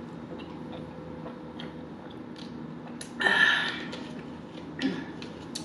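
Drinking water from a plastic bottle close to the microphone: quiet swallows and small wet ticks, then a short louder burst of noise about three seconds in as the drinking stops. The bottle cap is screwed back on near the end.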